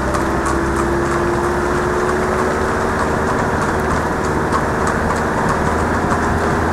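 Engines of a van and a car running steadily as they follow close behind trotting harness horses, mixed with the horses' hoofbeats on the wet tarmac.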